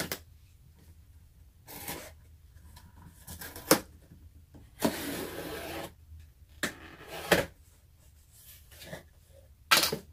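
Packing tape on a cardboard shipping box being slit and torn open with a cutter, with cardboard rustling and several sharp clicks. One longer tearing rip comes about five seconds in.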